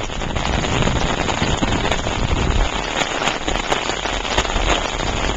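Heavy rain falling steadily, a dense patter of drops hitting an open umbrella close overhead and the wet pavement around it.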